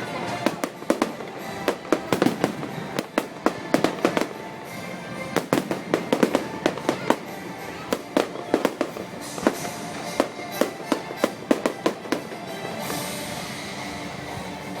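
Fireworks going off in rapid volleys of sharp bangs and crackles, several a second, over show music. The bangs thin out over the last few seconds.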